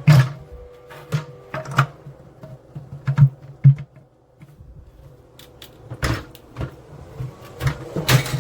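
Irregular sharp clicks and knocks of hard plastic being handled, with a quieter stretch midway.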